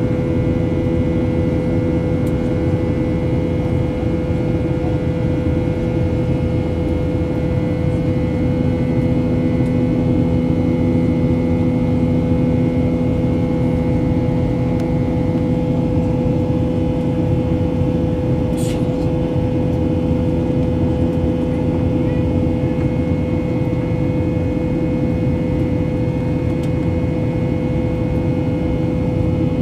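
Cabin noise inside a Boeing 737-800 climbing after take-off, heard from a window seat beside the wing: the CFM56-7B turbofans' steady rush with a held hum-like tone over it. A brief faint hiss about eighteen seconds in.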